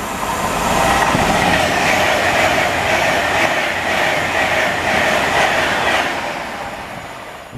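A train running past on the rails, swelling over the first second, holding, then fading, with a rhythmic clatter of wheels over rail joints. The sound cuts off suddenly at the very end.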